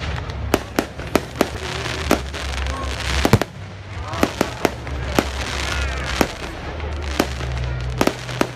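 Aerial fireworks shells bursting overhead in a quick, irregular series of sharp bangs, well over a dozen. The loudest comes a little past the middle.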